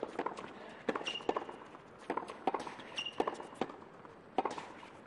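Tennis rally on a hard court: sharp pops of racket strings striking the ball, roughly one every second, with short high squeaks of players' shoes on the court twice.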